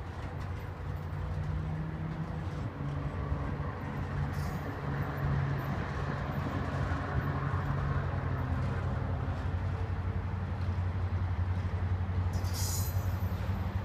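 Loaded autorack freight cars rolling past on steel wheels, a steady low rumble from the rails, with a brief high squeal near the end.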